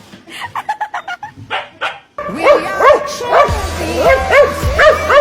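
A dog yipping and barking in short, uneven calls; about two seconds in this cuts to music with a steady bass, over which short rising-and-falling cries repeat about twice a second.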